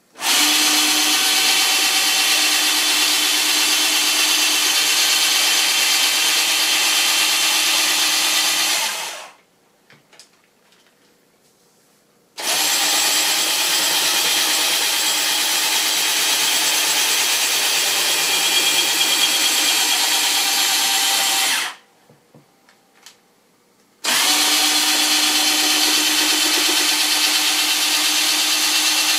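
Power drill running a threaded-rod lead screw to raise and lower the saw blade of a homemade table saw. It runs steadily three times for about nine seconds each, with short pauses between runs, and starts and stops quickly each time.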